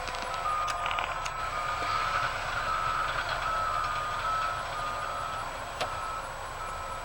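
Reversing alarm on a piece of heavy construction equipment beeping at a steady high pitch, about one beep a second, over a running diesel engine. A single sharp clank about six seconds in.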